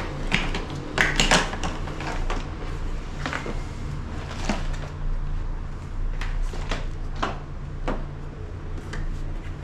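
Scattered plastic clicks and knocks from handling a Kärcher NT 15/1 wet/dry vacuum, whose motor is off. A steady low hum runs underneath.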